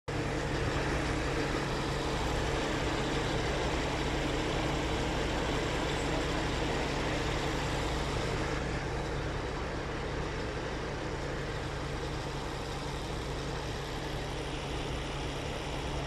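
A steady engine hum with a constant low drone under a wash of noise, unchanging throughout.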